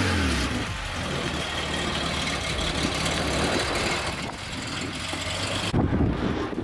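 Air-cooled Porsche 911 flat-six engine dropping back from a rev into a steady idle, with a short louder burst near the end.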